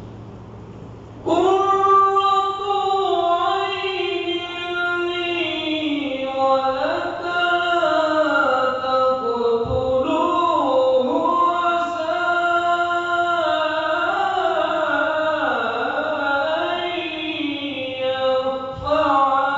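A male qari chanting Quran recitation in the melodic tarannum style through a microphone. The voice comes in about a second in and sings long, ornamented held notes that glide up and down, with a brief pause for breath about halfway through and again near the end.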